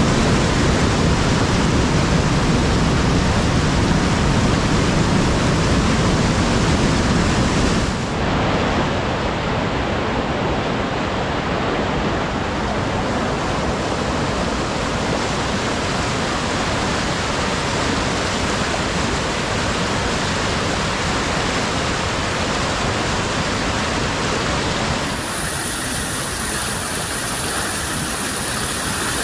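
Fast-flowing river in spate rushing over rapids through a stone mill channel, a loud, steady roar of white water. The tone shifts about eight seconds in and again near the end as the view changes.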